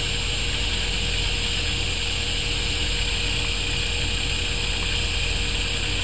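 Steady low hum with a constant high-pitched hiss and no distinct events.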